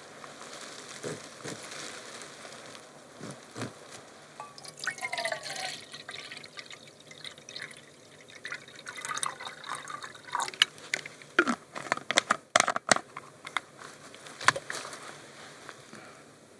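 Water trickling and dripping, with irregular small splashes and clicks, busiest in the second half.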